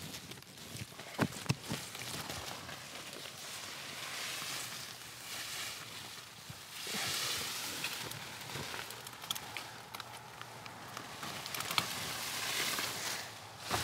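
Leafy tree branches rustling and scraping as they are dragged across a shingled roof, with a couple of sharp knocks about a second in.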